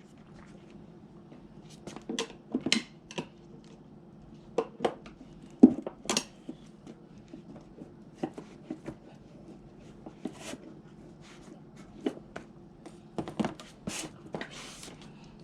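Hand tools clinking and knocking against metal parts of a moped wheel and tyre at irregular intervals, with one louder knock about five and a half seconds in.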